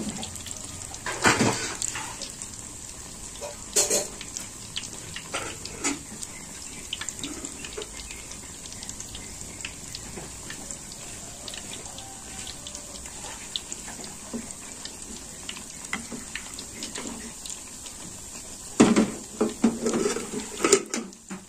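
Corn fritters deep-frying in hot oil, a steady sizzle, while hot oil is ladled over fritters stuck to the pan's sides. A utensil knocks against the pan a few times, most sharply about one and four seconds in, with more clatter near the end.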